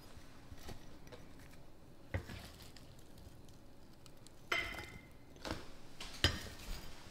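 Metal measuring cup knocking and clinking against glass canning jars as sliced onions are tipped in. There is a single knock about two seconds in, then a few more near the end, one with a short ring.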